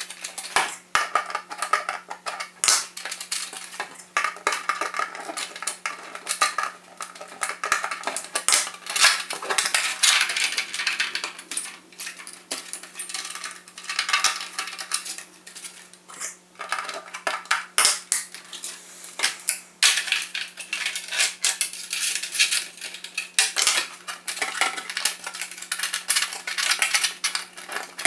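Irregular clicking and clattering of small hard parts being handled during model assembly, with a steady low hum underneath.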